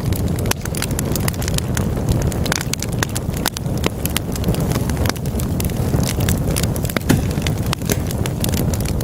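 Wood fire burning in a fireplace: a steady low roar of flames with many sharp, irregular crackles and pops from the burning logs.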